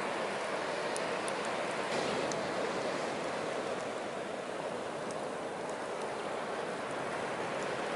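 Steady wash of sea surf on the shore, with a few faint crackles from a driftwood fire.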